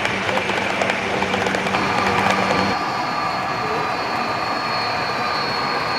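HO scale model trains running, a steady mechanical hum and hiss. A low drone stops abruptly about three seconds in as higher steady whining tones take over.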